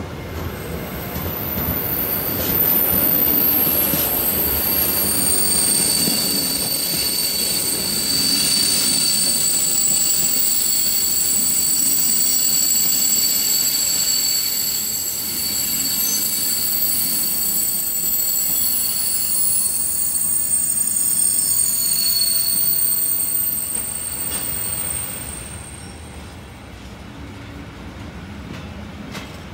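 Container freight train passing behind a Siemens Vectron electric locomotive, its flat wagons rumbling over the rails with a steady high-pitched squeal from the wheels. The sound builds over the first two seconds and fades about 25 seconds in as the train goes by.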